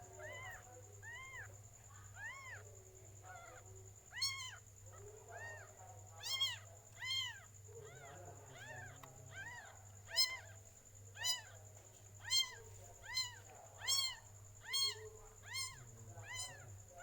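Newborn kitten mewing over and over: short, high, thin mews that each rise and fall, about one a second, growing louder after the first few seconds.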